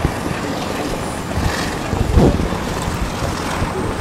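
Wind buffeting the microphone, a heavy low rumble that comes and goes, over a steady haze of street traffic. One louder gust-like swell comes about two seconds in.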